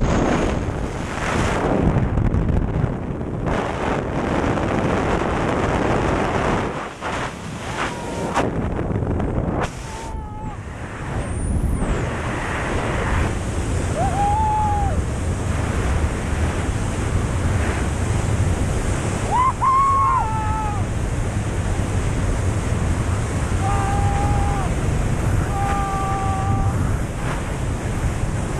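Freefall wind rushing loudly over the camera microphone during a tandem skydive, with a few short wordless shouts from the jumpers.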